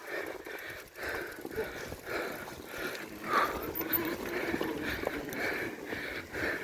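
A mountain biker breathing hard and fast while riding, about two breaths a second, over the rumble of the bike on rough ground.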